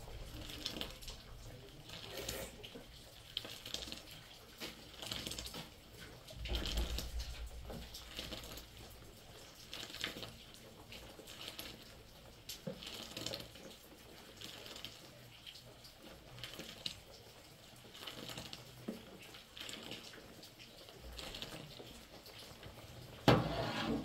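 Water splashing and trickling in short, irregular bursts, with a louder knock just before the end.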